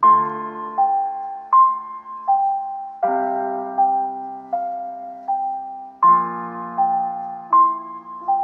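Piano music: a slow two-note figure repeating over held low chords, with a new chord about every three seconds.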